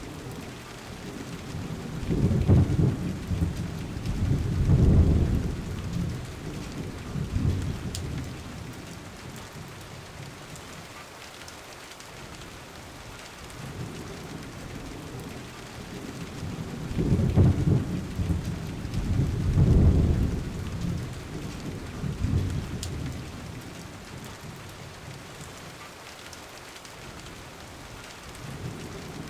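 Steady rain falling, with two long low rolls of thunder, the first from about two seconds in and the second from about sixteen seconds in, each lasting several seconds.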